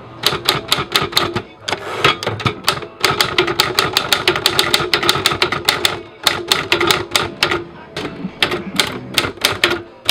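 Typewriter keys struck in quick runs of typing, several sharp clacks a second, with short pauses between runs.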